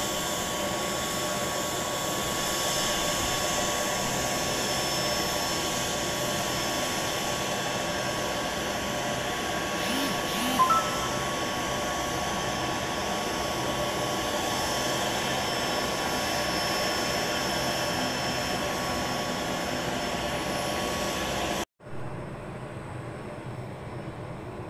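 Grumman C-2 Greyhound turboprop engines running on the ground, a steady engine and propeller noise with a held high tone in it. A brief sharp sound rises above it about ten seconds in. Near the end the sound cuts off abruptly and is replaced by a quieter steady engine noise.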